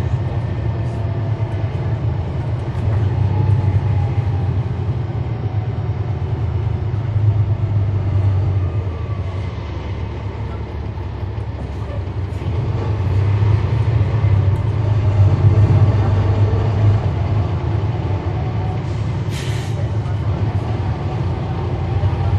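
Cummins ISL9 inline-six diesel engine of a NABI 40-foot transit bus, running steadily under way with a deep, even rumble. It eases off a little partway through and grows louder again past the middle.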